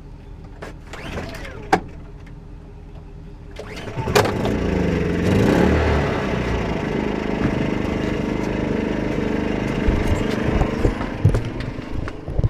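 A vehicle engine starts about four seconds in, dips and picks up in pitch, then runs steadily, with a few knocks near the end.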